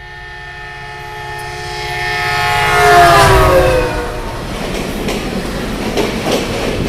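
A passing train's horn sounds continuously, growing louder, then drops in pitch as the train goes by about three seconds in. The rumble of the carriages with rhythmic wheel clacks on the rail joints follows.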